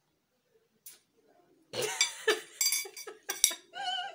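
A moment of near silence with a single click, then about two seconds in, loud high-pitched laughter breaks out in short, choppy bursts.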